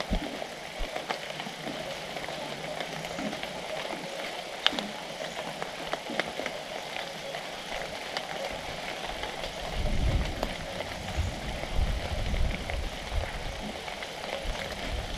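Steady rain pattering on leaves, with scattered sharp drips. An irregular low rumble joins in about ten seconds in.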